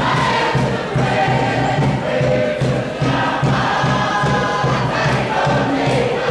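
A large group of voices singing together in chorus over a steady beat.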